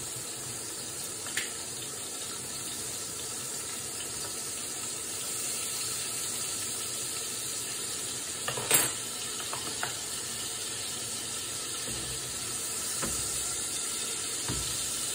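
Meat sizzling in a frying pan, a steady hiss, with a few sharp clicks and one louder knock about nine seconds in.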